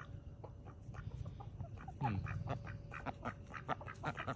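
Ducks quacking in a run of short calls that grows busier about halfway through, with one louder call falling in pitch about two seconds in.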